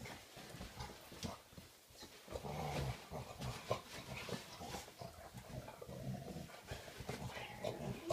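Two pointers play-fighting, with low play growls a couple of times among continual scuffling and thumping of paws and bodies on blankets.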